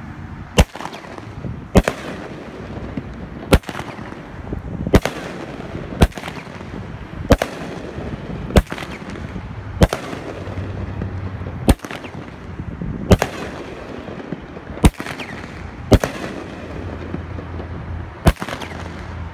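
A 200-gram consumer fireworks cake, Red Rhino's 10-shot Monkey Business, firing its shots in sequence: about a dozen sharp bangs, one every second or so, over a steady hiss.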